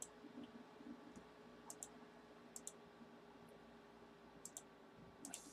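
Faint, sparse clicking from working a computer, mostly in quick pairs about a second apart, over near-silent room tone.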